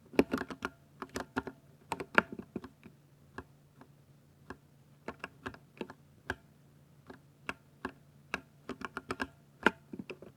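Typing on a 60% mechanical keyboard with silver switches: irregular runs of sharp key clacks, a fast flurry in the first two seconds and another near the end, with sparser keystrokes in between.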